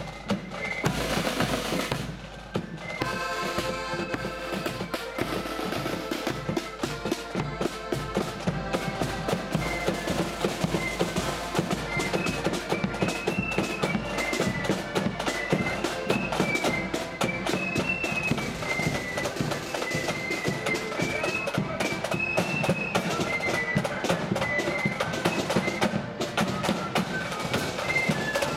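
Loyalist marching flute band playing: a snare drum roll at first, a short break about two seconds in, then the flutes take up a tune over snare drums and a bass drum beating time.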